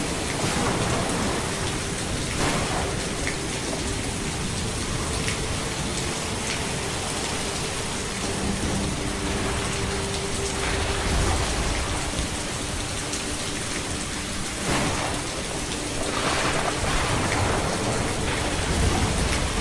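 Steady rain falling on surfaces, an even hiss with scattered sharper drop hits.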